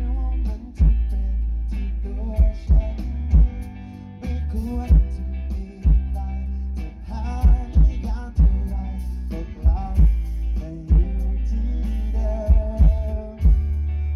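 A live band playing a song through a loud PA: sung vocals over electric guitars, bass guitar and a steady beat, with heavy, booming bass.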